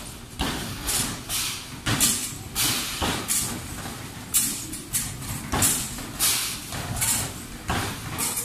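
Basketballs being shot in quick succession at an arcade basketball machine, thudding against its backboard and hoop about once or twice a second.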